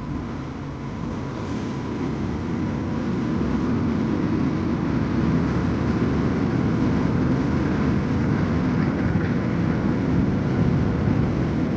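Diesel locomotive hauling a passenger train, with its coaches rolling past on the rails. It is a steady, low rumble that grows louder over the first few seconds and then holds.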